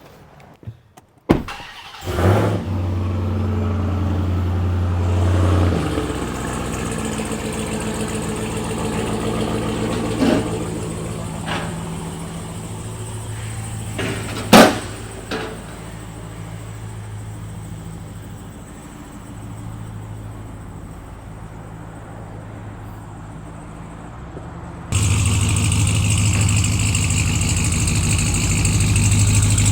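Vehicle lift in use: a low electric motor hum that starts and stops in stretches, with a few clicks and one sharp clack about halfway through. Near the end a louder steady engine-like running cuts in suddenly.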